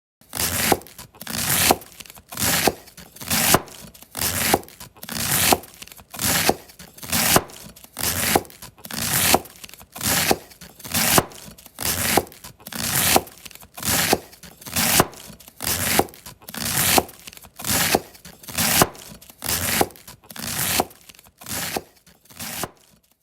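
Cabbage being slowly shredded into thin strips with a knife: crisp cutting strokes at a steady pace of about one a second, growing fainter near the end.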